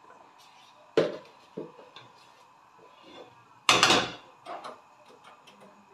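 Kitchen dishes and utensils clattering: a sharp knock about a second in, a few lighter taps, and a louder clatter lasting about half a second a little before four seconds. A low steady hum starts near the end.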